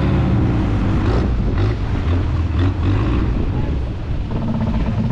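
Longtail boat's engine running steadily under way, over the rush of water along the hull, with a few short splashes as the boat meets the waves.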